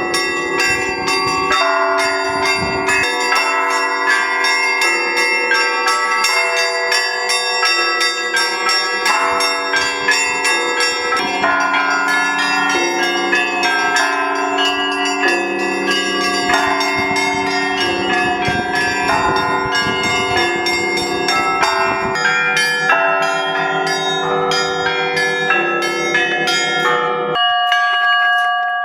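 Russian Orthodox church bells on a belfry rung together in a fast, continuous peal, low and high bells struck many times a second. Near the end the lowest bells stop, the peal breaks off, and the last strokes ring on and fade.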